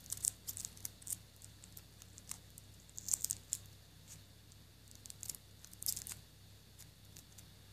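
Sticky tape being snipped with small scissors and handled, heard as three short clusters of crisp snips and crackles.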